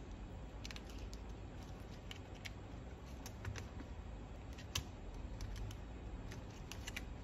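Faint, scattered light clicks and taps of gloved hands handling an opened smartphone's parts, reconnecting its battery and screen connectors; one slightly sharper click about halfway through.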